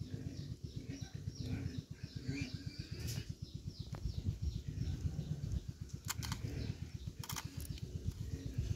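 Pink apple snail egg clusters being squashed and rubbed between a fingertip and a stick, giving a fast, dense low crackle throughout, with a few sharper crackles about three seconds in and in two short bunches after six seconds.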